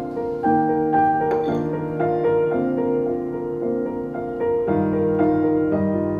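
Background piano music: a slow melody of held notes over changing chords.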